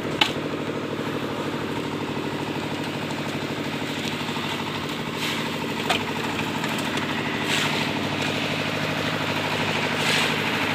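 Engine of a concrete mixer running steadily with an even pulse, with a sharp knock just after the start.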